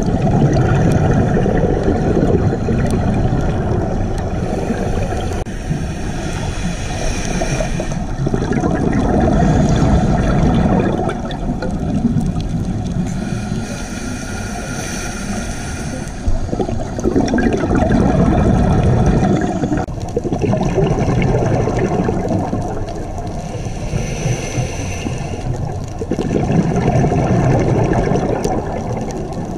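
Scuba diver breathing through a regulator, heard underwater: a low bubbling rush of exhaled bubbles about every eight seconds, with a thinner hiss of inhalation between the rushes.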